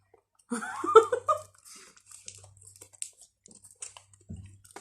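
Crispy fried chicken being bitten and chewed close to the microphone, with small crunching clicks and crackles. A short burst of voice, like a giggle, comes about half a second in.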